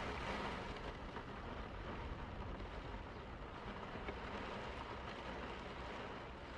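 Heavy rain pouring down: a steady, even hiss with a low rumble beneath it.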